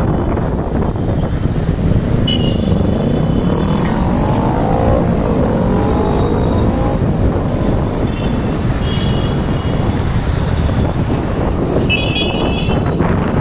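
Riding through road traffic: a steady engine rumble with wind noise on the microphone. Between about four and seven seconds in, an engine rises and falls in pitch, and short high beeps sound a few times.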